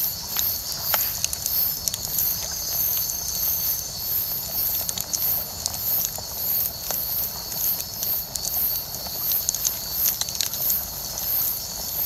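Wood bonfire crackling, with many small irregular pops, over a steady high chorus of night insects pulsing a few times a second.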